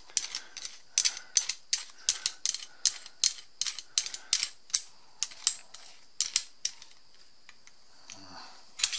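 Metal-on-metal clicking, a few clicks a second, as an auger bit is twisted and worked into the socket of a brace-and-bit extension. The clicking stops about seven seconds in, with one more click near the end.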